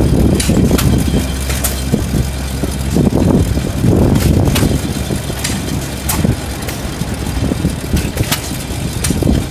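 Small Atlas stationary gas engine running and driving the turning drum of an old Atlas semi-steel cement mixer, with an uneven beat of low thumps and sharp clicks.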